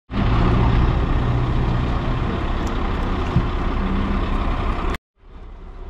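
Steady engine and road noise of a moving road vehicle, a low hum over a rushing hiss. It breaks off abruptly about five seconds in and comes back quieter, building up again.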